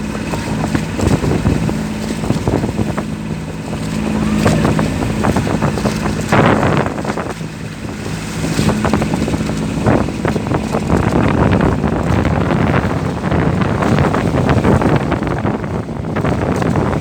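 A small boat's engine running steadily, with wind buffeting the microphone and scattered knocks.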